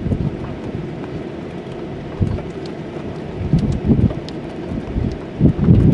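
Heavy rain and wind on a vehicle in a thunderstorm: a steady rushing hiss with scattered sharp drop ticks, and low rumbling gusts swelling about two seconds in, around the four-second mark, and near the end.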